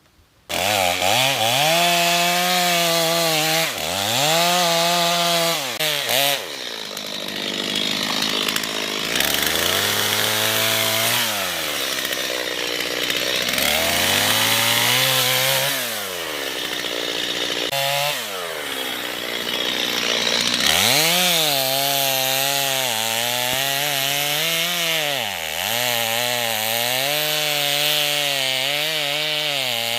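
Two-stroke chainsaw cutting into a standing tree trunk, making the felling notch. The engine note sags as the chain bites into the wood and climbs again between passes, many times over, with a short break about eighteen seconds in.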